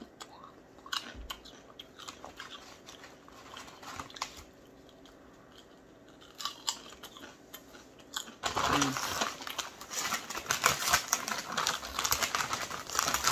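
Potato chips crunching as they are chewed, a few small crisp clicks. About eight seconds in, the plastic chip bag crinkles loudly and steadily as it is handled.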